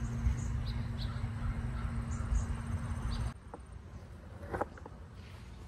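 Outdoor ambience: a low rumble with a steady hum and scattered brief high chirps. About three seconds in, the background drops suddenly to a quieter hush with a few faint ticks.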